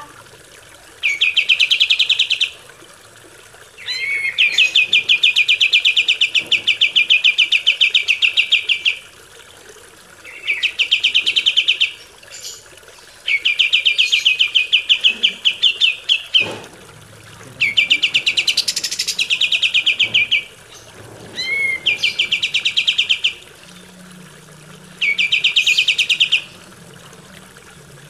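Kapas tembak bird singing a string of rapid, rattling trills, about seven phrases of one to five seconds with short pauses between them, some opening with a quick rising note.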